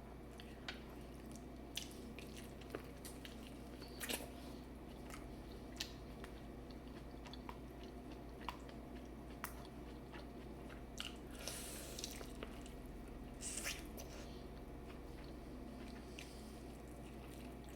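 Quiet close-up eating sounds: chewing, with scattered small clicks and crunches of seafood-boil food and shells, and a brief rustle twice about two-thirds of the way through, over a steady low hum.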